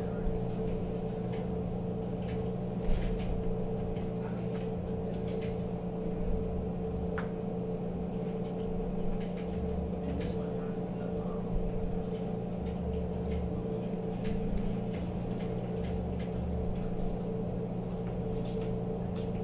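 Light, scattered clicks and ticks of a screwdriver and small screws as screws are driven into a receipt printer's housing, over a steady low hum.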